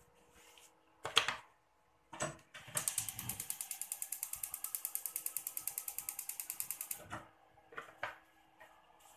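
Gas hob's spark igniter clicking rapidly, about ten clicks a second for some four seconds, while the burner knob is held turned to light the burner. Two sharp knocks come just before the clicking, the first of them the loudest sound.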